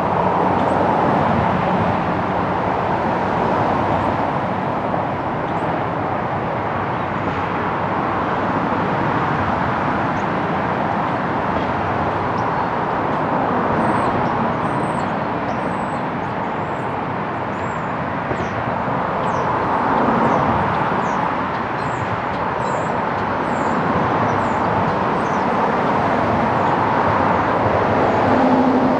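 Steady roar of distant road traffic, with faint high chirps through the middle part.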